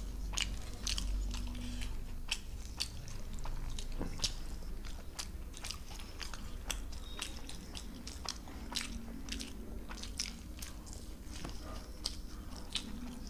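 Two people chewing and eating by hand, luchi (puffed fried bread) with potato curry: many short, irregular mouth clicks and soft chewing sounds.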